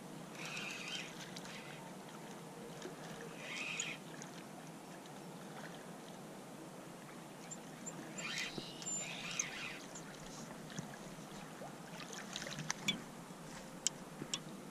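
A hooked fish splashing and thrashing at the water's surface close to the bank as it is played in on rod and line. There are short splashy bursts about a second in, near four seconds and around eight to nine seconds in, and a few sharp clicks near the end.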